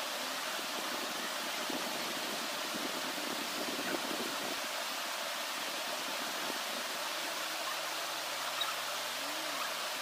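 A steady, even hiss with no speech, and a faint low hum and a brief rising-then-falling tone near the end.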